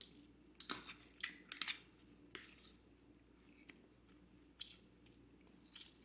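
Faint sounds of a person eating a salad: a scattering of short crunches and clicks, the sharpest about four and a half seconds in.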